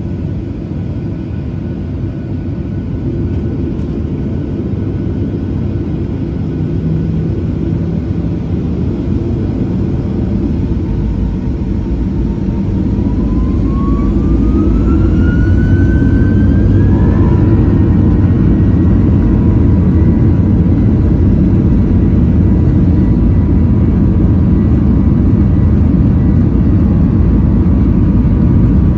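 Boeing 737-900ER's CFM56-7B jet engines heard from inside the cabin over the wing. A steady rumble runs until, about halfway in, a whine climbs in pitch and the noise grows as the engines spool up to takeoff thrust. It then holds steady and loud as the takeoff roll begins.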